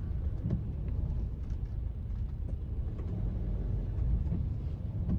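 Steady low road rumble from a car being driven, with faint scattered ticks.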